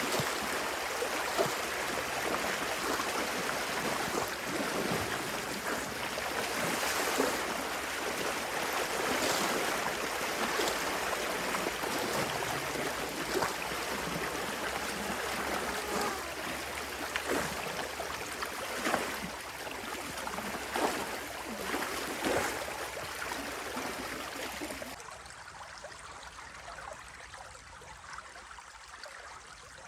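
Water rushing and splashing through a breached beaver dam into a drainage canal, a steady flow with frequent small splashes. It becomes abruptly quieter about twenty-five seconds in.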